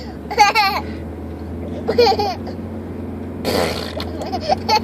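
A young child laughing and making silly farty mouth noises in three short bursts, each about a second and a half apart.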